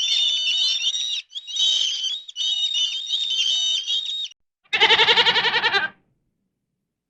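A goat bleating once, a wavering, tremulous call about five seconds in, preceded by a run of high, repeated warbling chirps from another animal.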